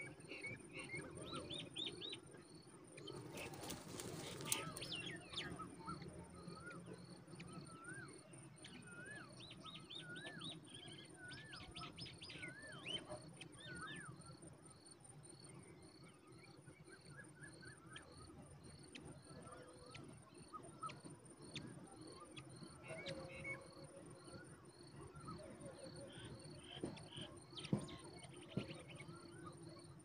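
Insects trilling steadily with a fast pulse, with many short whistled bird calls and chirps scattered over it. A brief rustling burst comes about three to five seconds in.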